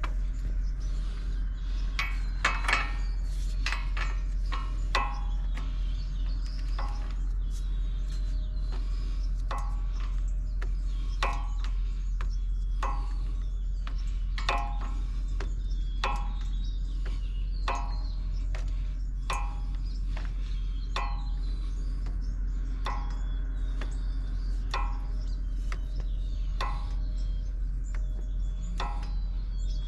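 Metal hand tools working a hub-assembly bolt: sharp ringing metallic clicks about once a second, over a steady low hum.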